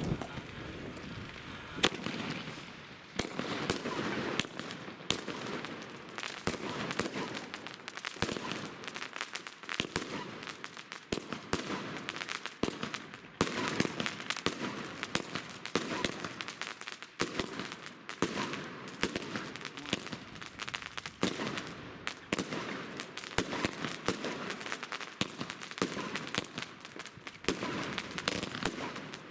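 Funke Chrys Rain-Blue consumer firework cake firing: a rapid, continuous run of shots and crackles, the loudest bang about two seconds in.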